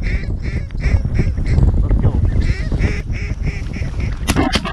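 Geese honking in a steady string, about two to three honks a second, over a low wind rumble on the microphone. A few sharp knocks sound near the end.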